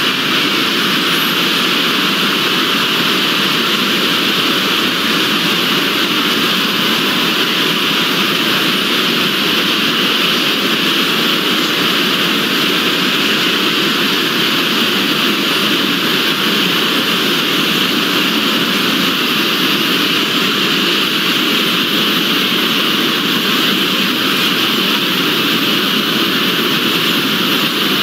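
A loud, steady wall of noise from dozens of video soundtracks playing over one another at once, blurred together so that no single voice or sound stands out.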